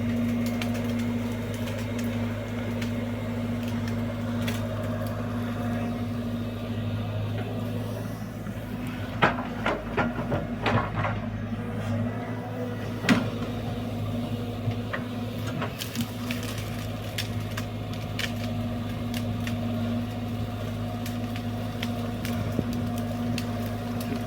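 Excavator's diesel engine running steadily, with a cluster of knocks and cracks about nine to eleven seconds in and a single sharp knock a couple of seconds later as the machine digs.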